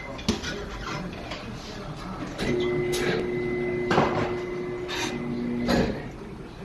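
Tire changer's turntable motor running with a steady hum for about three seconds as the mounting head works the tire bead onto the rim, with several sharp knocks and snaps, the loudest near the middle.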